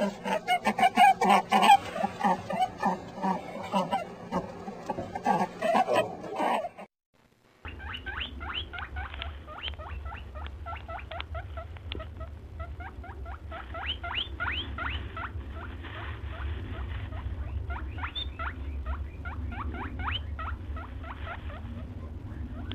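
For about the first seven seconds, a loud, rapidly pulsing pitched sound. After a short silence, a rabbit digs in a sand-filled glass tank: a long run of quick scratching strokes over a steady low rumble.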